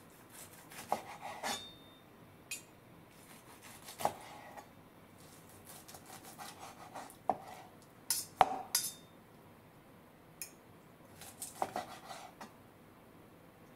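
Knife slicing through cooked chashu pork and tapping down onto a plastic cutting board, with a steel fork clicking against the blade and board. Irregular sharp taps and short scrapes, the loudest cluster about eight seconds in.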